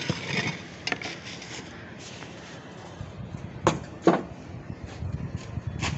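Knocks and clatter of containers being handled on a street snack cart, with two loud knocks a little past the middle and another near the end.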